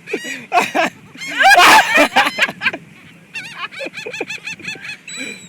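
A flock of seagulls calling around a feeding, many short squawks in quick succession, with one loud harsh cry about a second and a half in.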